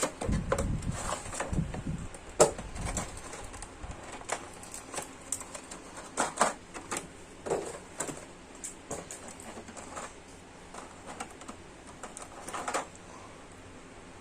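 Handling noise: irregular light clicks and taps, with low rubbing and rumbling during the first few seconds.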